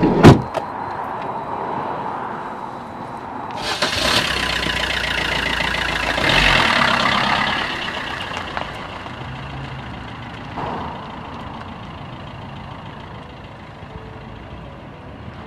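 A small van's door slams shut, then about four seconds in the van's engine runs up as it pulls away, loudest a couple of seconds later and fading out as it drives off.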